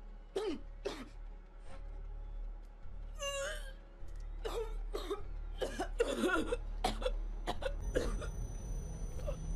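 A woman coughing, gagging and choking in a string of short strained bursts, with one long rasping gasp about three seconds in: she is choking on something caught in her throat and pulling it out through her mouth.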